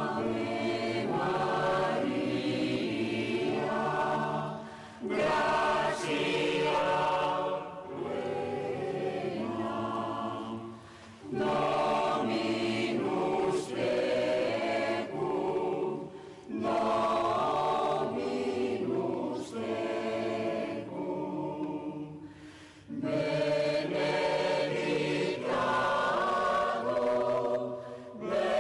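Mixed choir singing a hymn in phrases of a few seconds each, with short breaks for breath between them.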